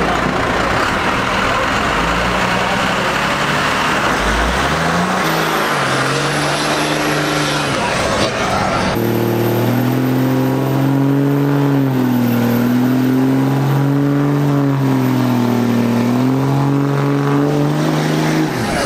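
Pickup trucks revving hard during burnouts. About nine seconds in, a Dodge Ram 2500's engine rises and then holds at high revs, dipping slightly now and then, while its rear tyres spin and smoke.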